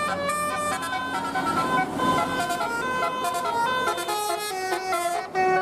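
Tour bus 'telolet basuri' musical horn playing a tune: a quick run of loud horn notes stepping up and down in pitch, a new note every fraction of a second.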